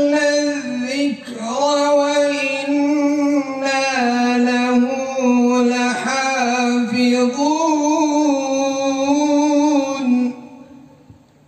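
Quran recitation: a reciter chanting in the slow melodic tajwid style, drawing out long held notes that bend slowly in pitch, and stopping about ten seconds in.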